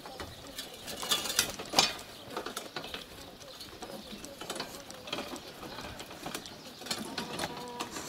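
Two-wheeled handcart with spoked metal wheels rattling as it is pushed along a bumpy dirt track, a steady run of irregular clicks and knocks.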